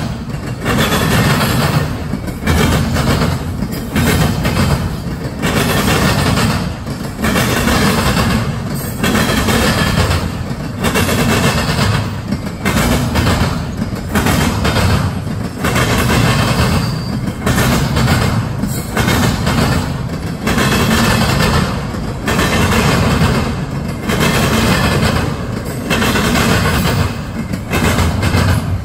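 Double-stack intermodal freight cars rolling past at speed: steel wheels rumbling and clattering on the rails in a steady, rhythmic clickety-clack.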